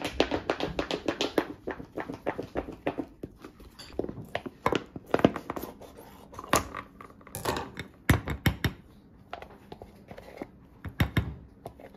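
Kitchen food-prep handling noises. A fast run of small clicks for about three seconds, then scattered sharp clicks and snips, including kitchen scissors cutting, with light plastic crinkling.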